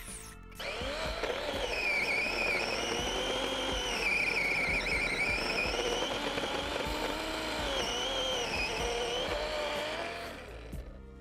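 DeWalt XR compact cordless chainsaw cutting through a thick log, starting about half a second in. The motor's whine dips and recovers in pitch as the chain bites into the wood, then dies away about ten seconds in as the cut finishes.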